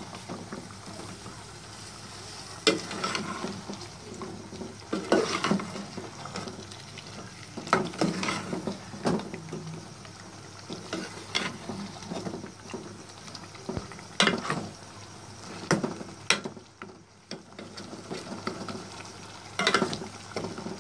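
A long steel spoon stirring chicken curry in a metal pot, scraping the sides and bottom in irregular strokes every second or two, over a steady sizzle of the frying masala.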